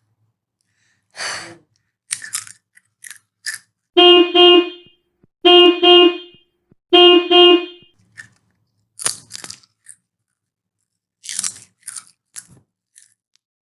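Loud crunching bites and chewing on crisp food in short bursts, with a horn-like honk sound effect sounding three times in the middle, each a quick double honk at one steady pitch.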